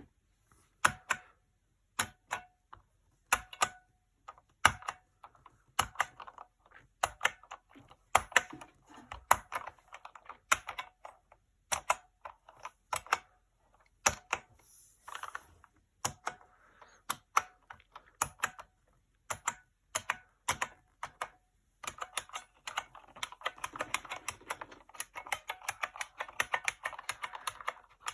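IBM Model M keyboard's buckling-spring keys clicking: single keystrokes and short runs of keys at a slow, uneven pace, then, about three-quarters of the way through, several seconds of fast continuous typing.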